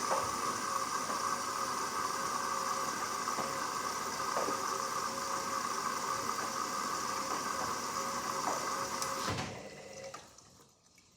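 Hoover Dynamic Next washing machine filling with water, the inlet valve open and water rushing in with a steady hiss; the flow cuts off suddenly near the end as the valve shuts.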